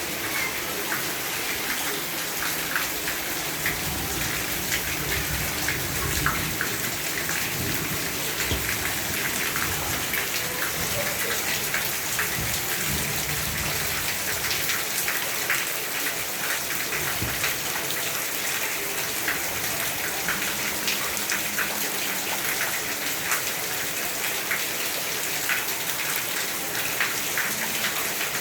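Steady rain falling, with many separate drops striking a surface as short, sharp ticks over an even hiss.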